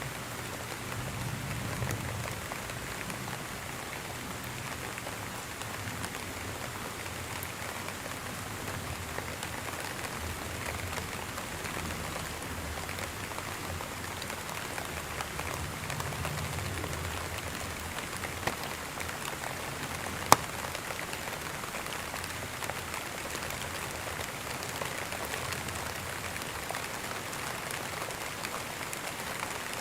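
Steady rain falling, an even wash of drops, with one sharp click about two-thirds of the way through.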